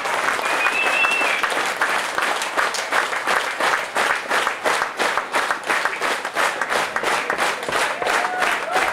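Theatre audience applauding, the clapping turning into rhythmic clapping in unison, about three claps a second. A short whistle sounds about a second in.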